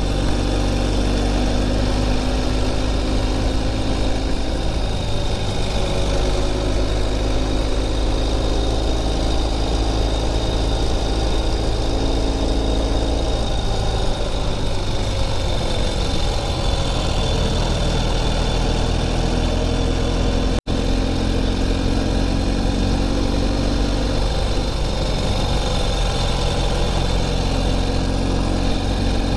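Motorcycle engine running under way, heard from the rider's seat with wind and road noise over it; the engine note rises and falls a few times as the throttle and speed change, and the sound cuts out for an instant about two-thirds through.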